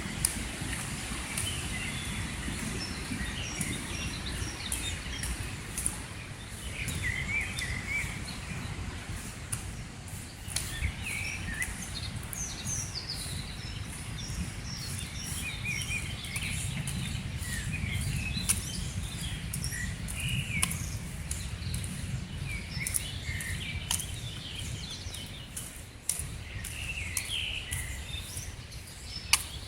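Songbirds chirping and singing again and again over the low, steady rush of a river swollen by heavy rain, with a few sharp clicks scattered through.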